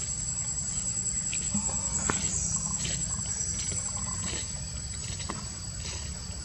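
Insects buzzing in a steady high-pitched drone, over a steady low rumble, with a few short faint clicks.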